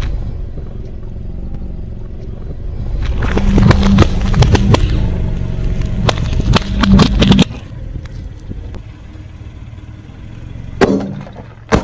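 Car tyre rolling slowly over asphalt, grit crackling under the tread as it squashes a soft rubber toy, with the car's engine running low underneath. Near the end come two sharp bangs about a second apart as inflated spiky rubber balls burst under the tyre.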